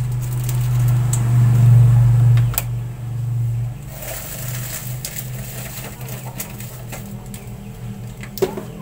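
A low, steady hum, loudest about two seconds in and fading by about four seconds, with scattered light clicks and a sharp knock near the end.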